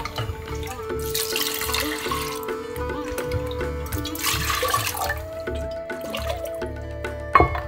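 Water poured into a steel measuring cup and from it into a stainless steel saucepan of lentils, in two runs of about a second, about a second in and about four seconds in, over background music. A sharp knock near the end.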